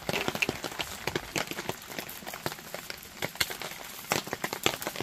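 Hand-twisted spice grinder grinding roasted garlic seasoning: a continuous run of quick, dry, irregular clicks, several a second.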